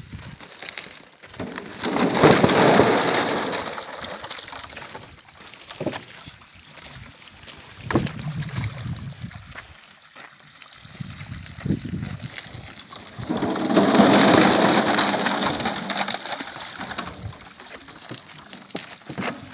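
A wheelbarrow load of black, water-filled plastic shade balls being tipped into a lined pond: a long rush of many balls clattering down the plastic liner and splashing into the water, about two seconds in, and another about thirteen seconds in, with smaller splashes between.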